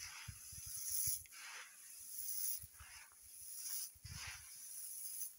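Dry shelled maize kernels rustling in a woven basket as hands stir and pick through them, in about four swells of hissing rustle roughly a second apart, with soft low thumps underneath.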